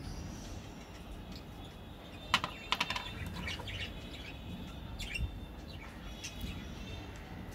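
Small sharp clicks and crinkles of a gold-foil-wrapped chocolate coin handled in the fingers, loudest in a quick cluster a little after two seconds in. Birds chirp faintly in the background.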